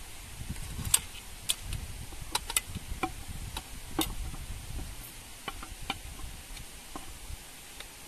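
Wooden spoon tapping and scraping against an enamel platter and a metal serving tray as rice is served, a run of irregular light clicks, the sharpest about a second in.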